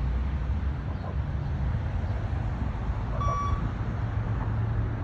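A single short electronic beep from a beep-test (multi-stage fitness test) recording, about a third of a second long, a little over three seconds in: the timing signal for the runners. It sounds over a steady low rumble.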